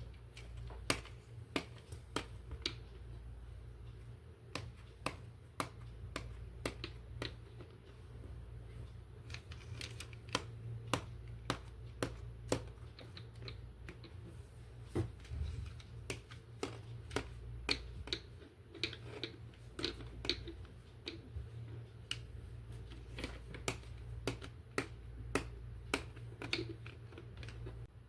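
Irregular sharp clicks and taps of hard plastic toy parts being handled and snapped together, several a second at times, over a steady low hum.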